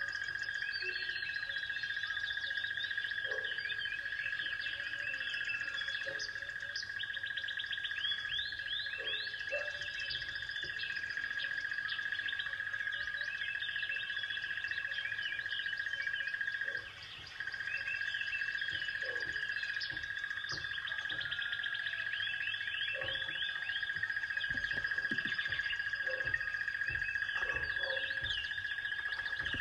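Birds chirping and trilling over a steady high drone, with background music. The drone and the overall sound break off briefly about halfway through.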